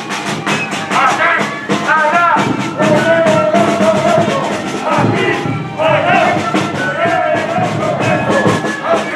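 Music with a steady, even beat and a melody of held notes that waver in pitch.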